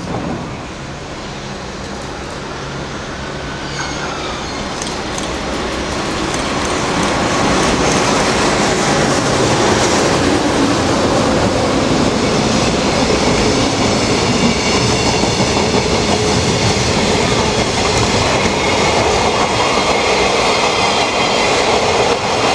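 A freight train with a JR Freight EF210 electric locomotive approaches and passes close by, growing louder over the first several seconds. Its long line of container wagons then runs past with a steady, loud rumble and clatter of wheels on the rails.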